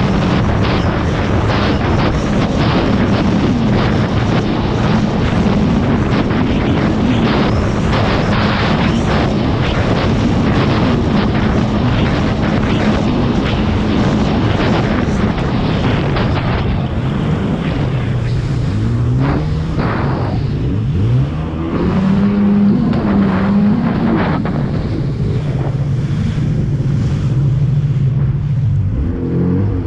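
Jet ski engine running under way, with wind buffeting the microphone and water rushing past the hull. In the second half the engine pitch dips and rises several times as the throttle is eased and opened again.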